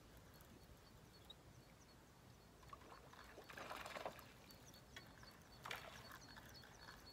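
Faint lapping of small waves against shoreline rocks, with a louder swash about three and a half seconds in and a brief one near six seconds.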